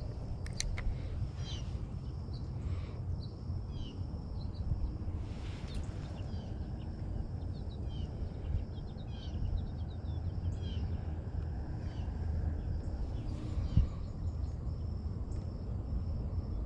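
Outdoor creekside ambience: many small birds chirping and twittering on and off over a steady low rumble, with one sharp knock about fourteen seconds in.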